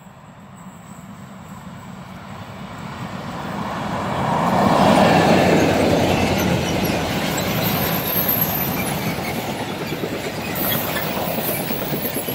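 Electric-line freight train passing close by: the locomotive's approach grows steadily louder for about five seconds, then a long string of covered sliding-wall goods wagons rolls past with steady wheel rumble and clatter. Faint high wheel squeals come and go in the second half.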